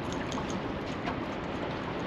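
Steady wind and water noise around a fishing boat, with a few faint light ticks in the first second as a rod is handled and lifted from its holder.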